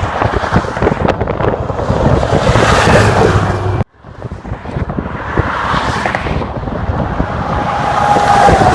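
Wind noise on the microphone over passing road traffic. It cuts out abruptly about four seconds in, then builds back up.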